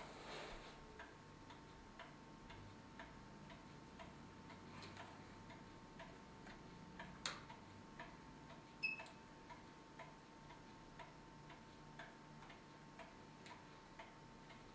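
Faint ticking of a pendulum wall clock, about two ticks a second, over a faint steady whine. A single sharp click comes about seven seconds in and a short electronic beep about nine seconds in.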